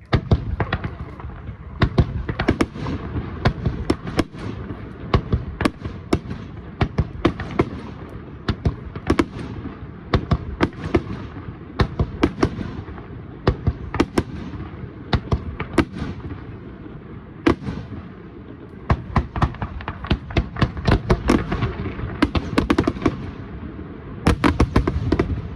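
Fireworks display: a continuous barrage of aerial shells bursting, with many sharp bangs a second over a rumbling haze of echo. The bangs come thickest in quick volleys near the end.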